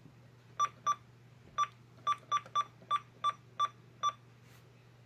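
Ten short, identical electronic beeps at uneven spacing, all at one pitch, over a faint steady hum.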